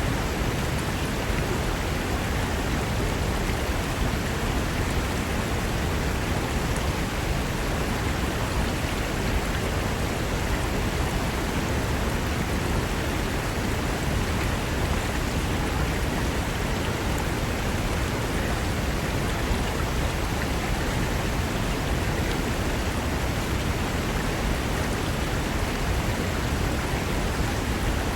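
Fast mountain river rushing over rocks, a steady even roar of water.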